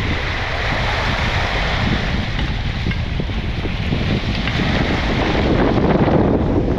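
Wind blowing across the microphone, a steady rumbling rush that gets a little louder near the end.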